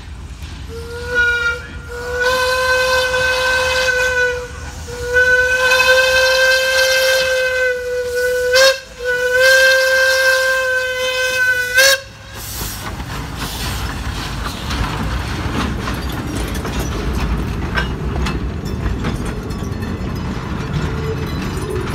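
Steam whistle of an ex-Soo Line steam locomotive: a brief toot, then the long, long, short, long blasts of the grade-crossing signal. After the last blast the locomotive and its freight cars and caboose rumble steadily past on the rails.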